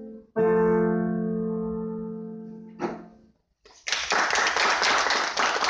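Grand piano: a loud final chord struck about half a second in, ringing and fading away. After a short pause, an audience applauds from about four seconds in.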